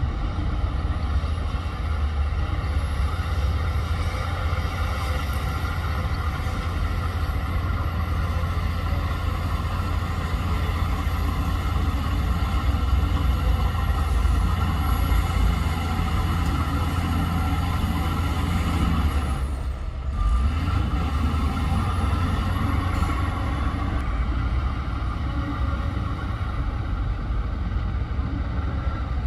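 Heavy diesel earthmoving machinery running steadily under load, with a deep engine rumble. The sound briefly drops away about twenty seconds in, then comes back.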